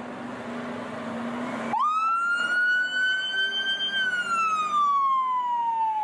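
Fire truck siren wailing over a low engine hum. The siren cuts in abruptly about two seconds in, climbs slowly for a couple of seconds, then glides down in one long fall.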